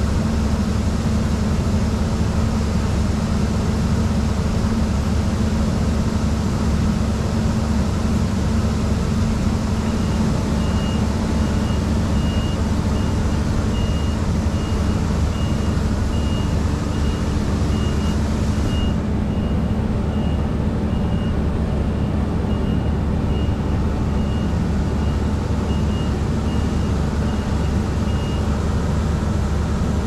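Claas Tucano 420 combine harvester running steadily while it unloads wheat through its unloading auger into a trailer, with a tractor engine alongside: a loud, even engine drone. About ten seconds in, a regular series of high electronic beeps starts and goes on for about eighteen seconds.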